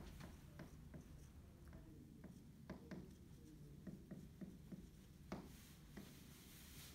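Dry-erase marker writing on a whiteboard: faint, irregular strokes and taps of the tip on the board over quiet room tone.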